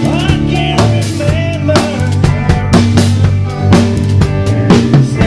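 Live band playing, with the drum kit to the fore: regular bass drum, snare and cymbal hits over held bass and instrument notes.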